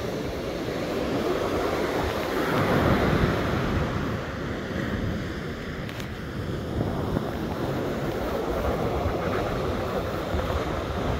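Ocean surf breaking and washing up the sand, with wind buffeting the microphone. A wave swells louder about two to four seconds in.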